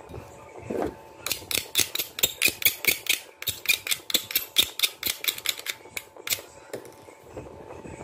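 A fast run of sharp clicks and scratches from hands and tools being handled at a repair bench, about five or six a second. It starts about a second in and stops about six seconds in, over a faint steady high hum.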